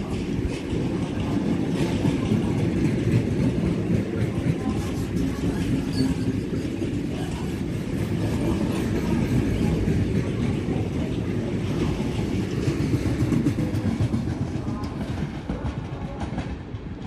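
Freight train of bogie hopper wagons rolling past, with a steady rumble of wheels on rail that fades over the last couple of seconds as the final wagons pull away.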